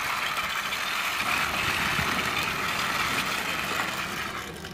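Plastic toy fire engine pushed by hand along a concrete ledge, its wheels and gearing giving a steady whir that fades near the end.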